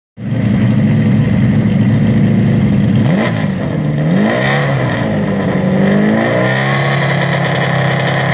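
Ferrari 308 GTB rally car's V8 engine running with its rear on a jack, steady at first, then blipped several times from about three seconds in, its pitch rising and falling, before settling back to a steady idle.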